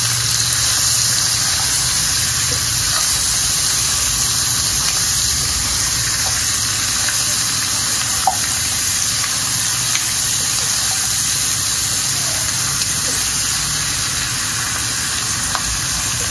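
Marinated chicken pieces, shallots and curry leaves sizzling steadily in hot oil in a nonstick wok as they are stirred with a spatula, with a few faint clicks.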